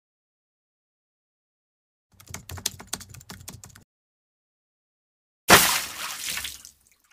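Light plastic-and-metal clicking and tapping as a plastic soda bottle is fitted into a round metal tin, starting about two seconds in. About five and a half seconds in comes a sudden loud hissing burst that fades away over a second or so.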